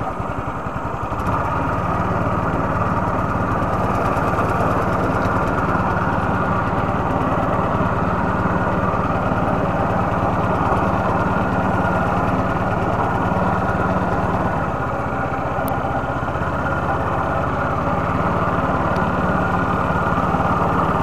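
Small boat motor running steadily just after being started, building up over the first couple of seconds. It slows briefly about fifteen seconds in, then picks up again.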